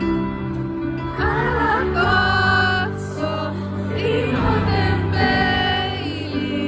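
Live band music with a woman singing lead into a microphone. Held chords run underneath, and her sung phrases start about a second in.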